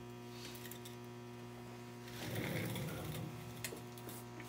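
Steady electrical hum with a buzz of evenly spaced overtones, with a short muffled noise in the middle.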